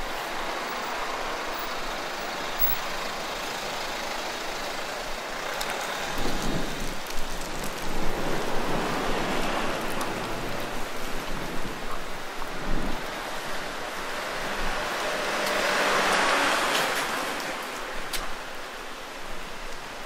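Road traffic going by: vehicles pass on a street, with a low engine rumble in the middle and another vehicle swelling up and fading away near the end.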